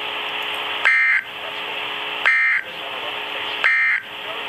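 Three short bursts of EAS/SAME digital data tones over NOAA Weather Radio, about a second and a half apart, marking the end of the broadcast warning. Radio static hiss and a faint steady hum fill the gaps between the bursts.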